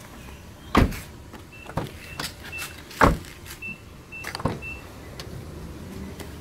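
Footsteps and handling knocks, three sharp thumps in the first three seconds, then the rear door of a Nissan Juke unlatching with a double click about four and a half seconds in as its C-pillar handle is pulled. Short faint high peeps come and go in between.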